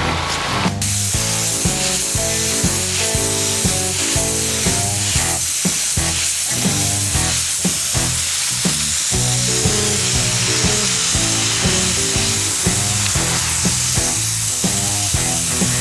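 Background music with a steady beat over a steady hiss of pressure-washer spray on concrete.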